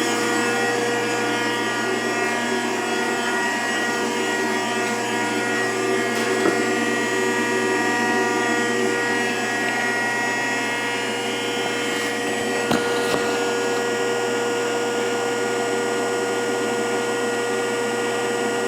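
A 10-horsepower electric motor driving a Vickers hydraulic pump on a Rockford hydraulic planer, running steadily with a whine of many steady tones; this is the pump's first run after some 30 years in storage. A couple of light knocks come about six seconds and about thirteen seconds in.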